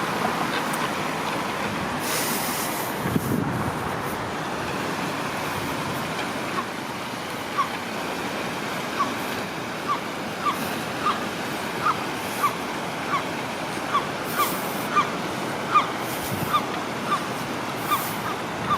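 A bird repeats a short, rising call about twice a second, starting about a third of the way in, over a steady rushing background of flowing water and distant traffic.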